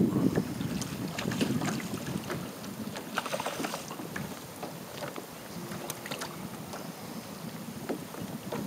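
Wind buffeting the microphone over small waves lapping at the kayak hull, with scattered light splashes and ticks throughout. The rumble is strongest at the start.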